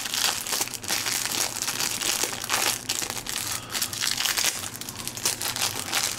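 Clear plastic packaging crinkling and crackling as it is handled, in a continuous run of small crackles.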